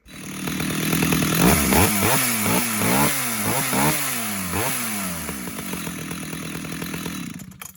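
STIHL 030 two-stroke chainsaw running, revved up and back down several times in quick succession, then settling to a steady idle for its last few seconds.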